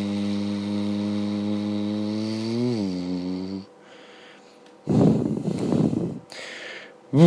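A person imitating a car engine with his voice: a steady low buzzing hum that swells up in pitch and then stops, followed by a rough, noisy rush of breath. A new low engine hum starts near the end.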